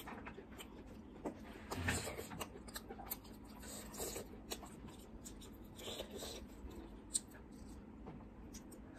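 Close eating sounds of a chicken drumstick in gravy: chewing and wet mouth clicks, with soft squishing and rubbing as the sauce-covered chicken is handled and dipped. There is one sharp click about seven seconds in.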